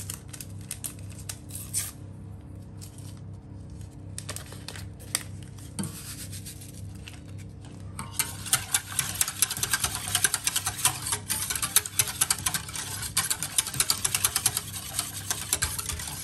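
Wire whisk in a stainless steel pot of thin milky cream mixture. At first there are only a few scattered clinks; from about halfway it whisks fast and without a break, the wires scraping and rattling against the pot's sides and bottom. A steady low hum runs underneath.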